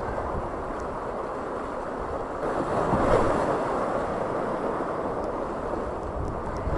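Rushing whitewater of a mountain river rapid around an inflatable raft, with wind buffeting the microphone; the water grows louder about three seconds in.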